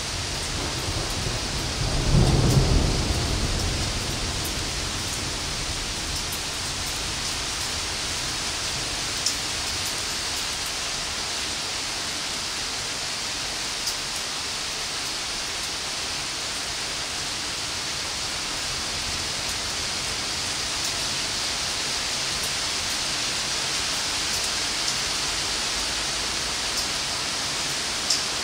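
Steady rain hissing in a thunderstorm, with a short, low rumble of thunder about two seconds in and a few sharp ticks later on.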